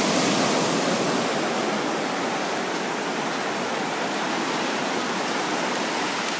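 Ocean surf washing on the shore, a steady rush that eases off slowly toward the end.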